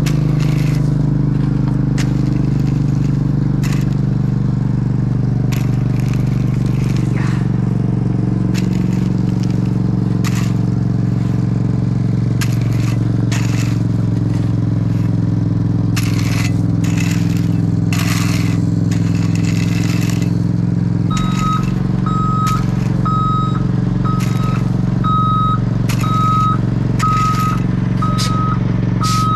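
Heavy diesel machine engine running steadily, with frequent clicks and rattles over it. About eight seconds from the end a backup alarm starts beeping about once a second: a machine is reversing.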